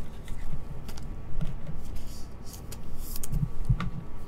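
Trading cards in rigid plastic top loaders being picked up and handled on a table: scattered light plastic clicks and short rustles, with a few soft knocks near the end.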